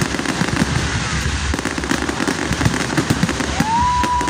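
Fireworks display: a dense, continuous run of bangs and crackling from aerial shells bursting overhead. Near the end a long steady whistle rises and holds.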